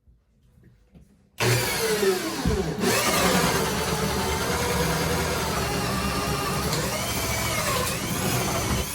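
Heavy-duty right-angle drill starting about a second and a half in and boring into hardwood with a freshly sharpened 2 9/16-inch self-feeding bit. Its motor pitch dips briefly as the bit bites, then it runs steadily under load.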